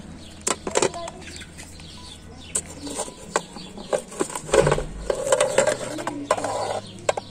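Iron hook clinking and scraping against a metal pan lid heaped with embers, with a heavier thud about halfway through as the lid is set down, then a stretch of scraping.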